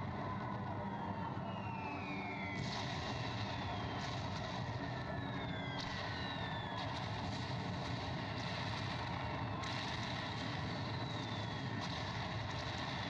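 Wailing, siren-like tones that slide down in pitch again and again, several overlapping, over a steady low rumble.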